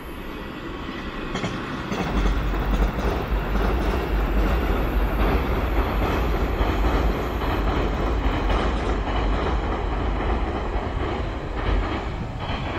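Electric commuter train crossing a railway bridge: a steady rumble of wheels on the track with rail-joint clacks. It swells about two seconds in and eases off near the end as the train moves away.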